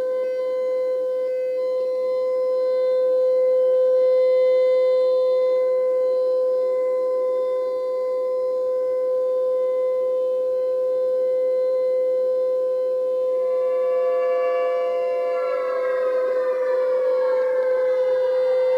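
Tornado-style civil defense siren sound effect holding one steady wailing tone. About 13 seconds in a second siren tone joins, and from about 15 seconds its pitch slides down.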